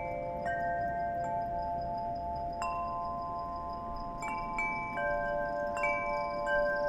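Metal chimes struck at irregular intervals, several ringing tones sounding at once and each ringing on long after its strike.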